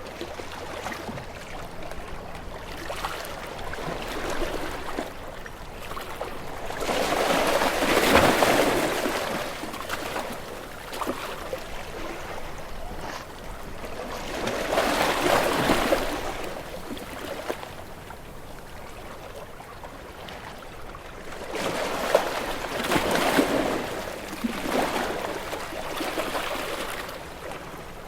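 Sea waves washing against rocks: a steady rush of water that swells into loud surges every several seconds, with four surges in all.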